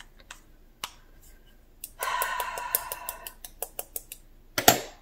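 Acrylic paint bottles being handled: a rattle of about a second, then scattered light clicks and one sharper knock near the end.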